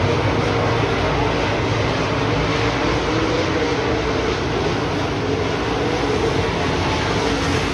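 A pack of dirt-track modified race cars racing around the oval, their engines making a loud, steady noise.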